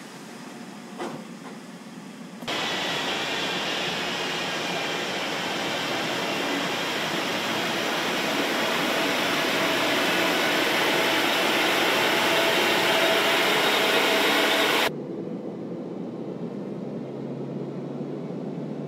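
BMW 3-Series car running on a roller test stand: its spinning tyres and drivetrain make a loud, steady rushing noise that starts abruptly a couple of seconds in, builds slightly, and cuts off abruptly about four seconds before the end. A quieter hum, with a single click, is heard before and after it.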